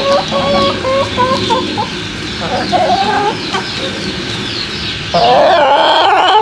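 Backyard hens cackling "kaka kaka": a run of short, repeated clucks, then a loud, longer call about five seconds in.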